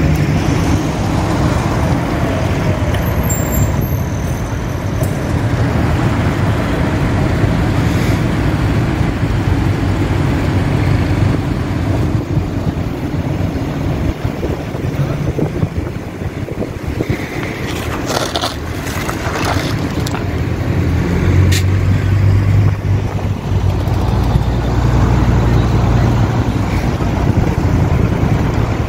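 Tractor engines running in a slow road convoy: a steady low diesel drone with road noise, growing heavier over the last several seconds, with a few short sharp noises partway through.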